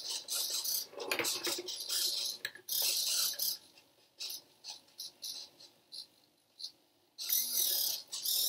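Small hobby servo motors buzzing in short high-pitched bursts as they tilt a cardboard labyrinth board back and forth, with a few faint clicks in between.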